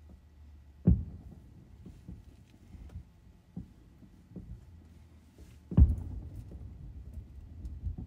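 Fireworks shells bursting: two loud, deep booms, one about a second in and one near six seconds in, each followed by a rumbling tail, with several fainter pops between.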